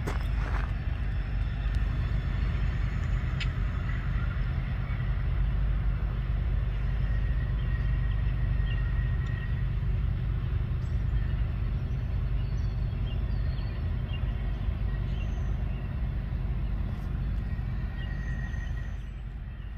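Long freight train rolling past with a steady low rumble, with a faint high whine now and then.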